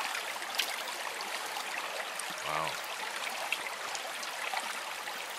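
Steady rushing of water: a shallow creek running while cups of water are poured into the funnel of a plastic salmon-egg planting pipe and trickle down into the streambed gravel.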